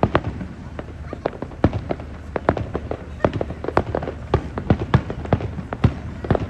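Fireworks bursting overhead in a rapid, irregular run of sharp bangs, several a second.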